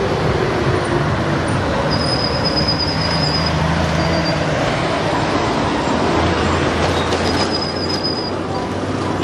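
Steady loud road traffic and street noise, with two short high steady tones about two seconds and seven and a half seconds in.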